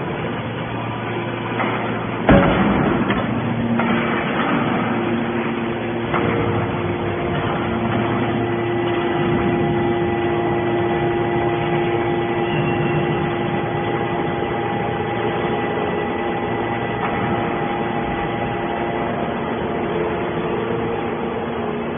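Hydraulic baler running: a steady motor and pump hum with held tones that shift in pitch, and a loud metallic clank about two seconds in, with a smaller knock a few seconds later.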